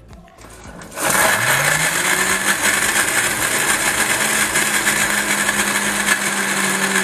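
Preethi Galaxy mixer grinder switched on about a second in, its motor pitch rising as it spins up and then running steadily while grinding coconut with fried gram and spices into a paste.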